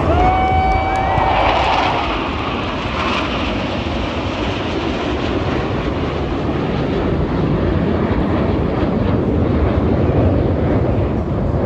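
Jet aircraft flying past: a loud, steady rumble of engine noise, with a brief high whistling tone in the first couple of seconds.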